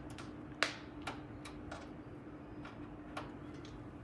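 USB plug being fitted into a computer case's USB port: one sharp click a little over half a second in, then several lighter taps and clicks as the plug and cable are handled, over a faint steady hum.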